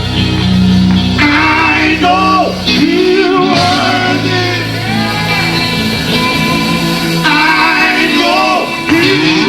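Live gospel band playing with electric guitar, bass and singing, loud and continuous.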